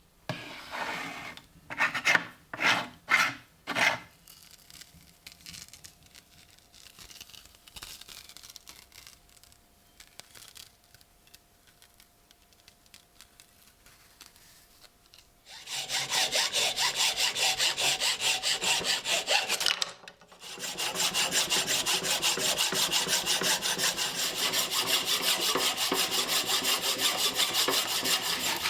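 A hand tool worked back and forth against a workpiece, with a rasping stroke sound. A few separate strokes come near the start, then after a quiet stretch a long run of quick, even strokes, broken once by a brief pause.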